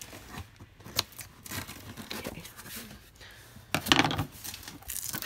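Scissors cutting the packing tape on a cardboard shipping box, with a sharp snip about a second in. A louder tearing, rustling burst comes near four seconds as the taped flaps are pulled open.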